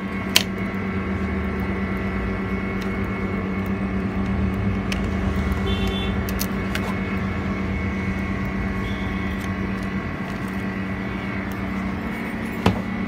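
Steady electric hum of a freezer-type LCD glass separator's compressor, with a low rumble underneath. There is a sharp click just after the start and another near the end.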